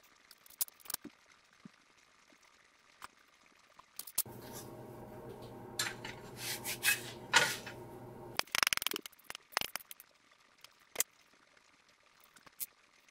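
A metal or plastic spatula clicking and scraping against a nonstick frying pan as a cooked pancake is lifted out, loudest about six to seven and a half seconds in. A steady low hum runs for about four seconds in the middle and cuts off suddenly.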